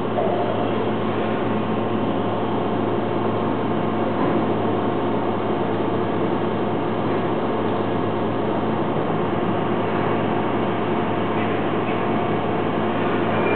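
CNC machining center running a program in an air-cut test, with no material being cut: its spindle and axis drives give a steady mechanical hum with a constant low drone and faint whining tones.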